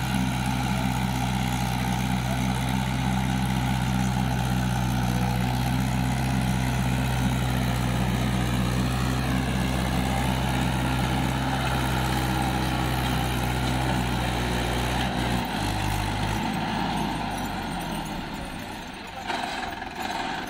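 Swaraj 843 XM tractor's three-cylinder diesel engine running steadily under load as the tractor climbs a sandy slope, then dropping to a lower pitch about fifteen seconds in.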